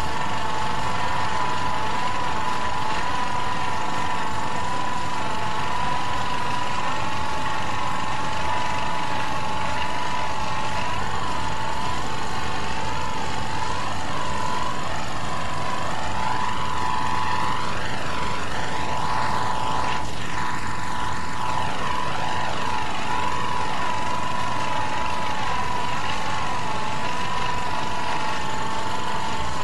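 Crematorium furnace roaring steadily, an unbroken rushing roar with a constant high hum through it.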